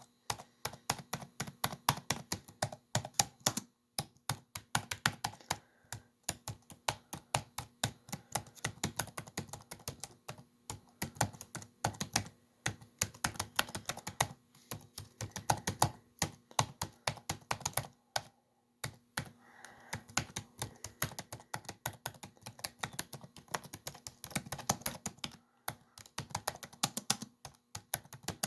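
Typing on a laptop keyboard: a fast, continuous run of key clicks with a few brief pauses.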